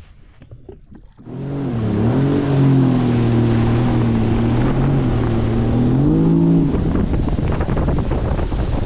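An engine running loud at a held pitch, dipping briefly about two seconds in and rising just before it cuts off about seven seconds in, with wind noise on the microphone throughout.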